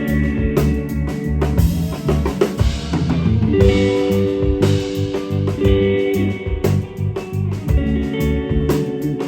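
Band music with a drum kit keeping a steady beat, bass and guitar, with held notes over the top.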